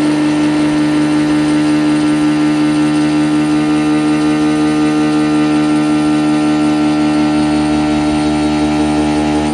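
PM25 CNC mill's carbide end mill roughing 4340 steel at about 4,700 RPM and roughly 40 inches a minute feed, a steady, loud, pitched whine with many overtones.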